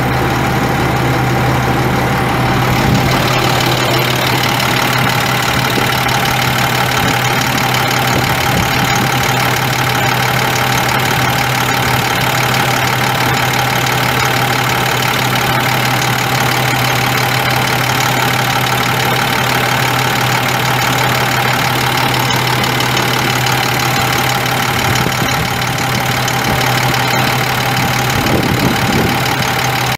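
Loud, steady engine-type mechanical running with a strong low hum and a steady higher tone.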